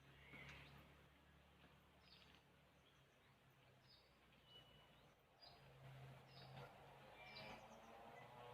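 Faint short bird chirps repeating about once a second over a low steady hum.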